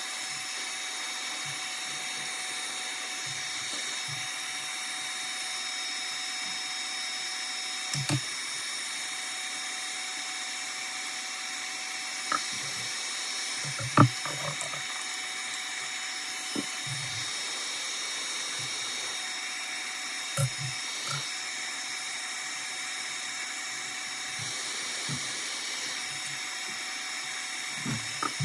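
Hot air rework station blowing steadily, a fan hum with several high whining tones, used to soften the adhesive under a phone's back glass. A few short sharp clicks and knocks come over it, the loudest about halfway through.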